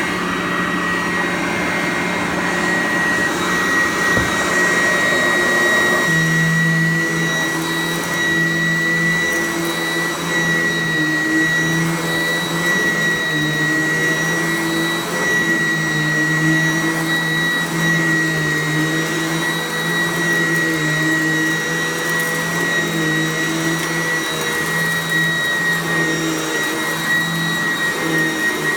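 Sanitaire SC888K commercial upright vacuum cleaner running steadily, with a high motor whine over a low hum. About six seconds in, the rushing air noise drops while the motor keeps running.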